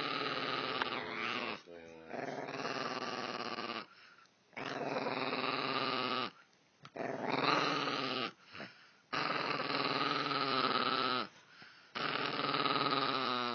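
Small black-and-tan dog growling: about six long, drawn-out growls, one after another, with short pauses for breath between them.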